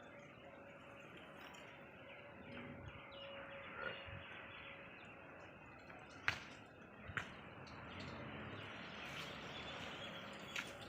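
Faint outdoor ambience with birds chirping, a faint steady hum and a few sharp clicks.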